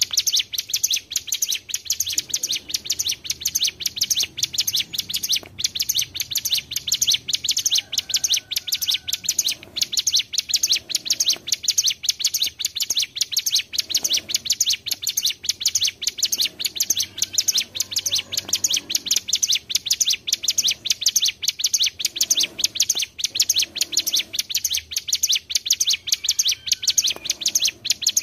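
Bar-winged prinia (ciblek gunung) singing a long, unbroken run of fast, high, sharp repeated notes, several a second, without a pause.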